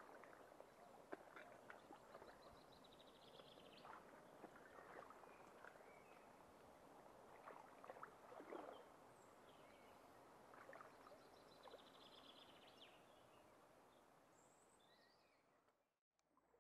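Near silence at a riverbank: faint scattered rustles and small clicks from the leafy plants around the angler, with a faint high bird trill twice. The sound cuts out just before the end.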